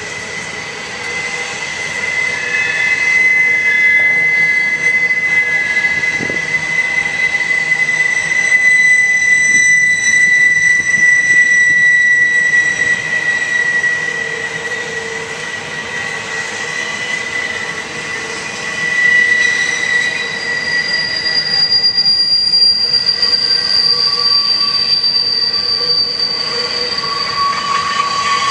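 Double-stack intermodal train of container well cars rolling past, its wheels squealing in several high steady tones over a constant rumble. It grows louder about three seconds in.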